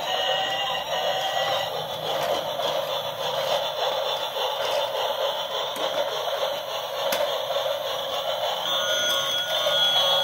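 Battery-operated toy trains running, their small speakers playing electronic tunes and beeping sound effects.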